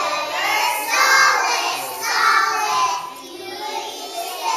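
A group of young children singing together in phrases, with a brief drop in volume about three seconds in.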